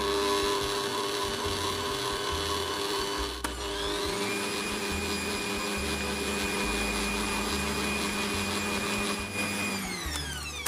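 Bosch stand mixer's motor running as its beater works butter, sugar, egg yolk and flour into cookie dough. Its whine rises in pitch a few seconds in, holds steady, then falls away near the end as the mixer winds down.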